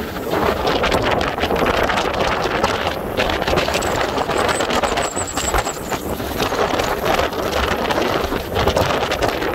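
Wind rushing and buffeting over a camera microphone while riding a road bike at speed, with a faint high whine briefly in the middle.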